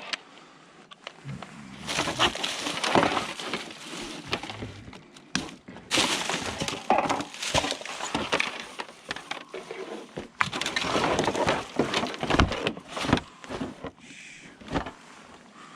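Discarded junk being handled and broken apart: an uneven run of cracking, clattering and crunching, with short pauses.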